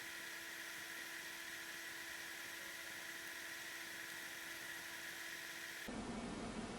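A faint, steady whir and hiss with a few fixed tones, which starts and stops abruptly.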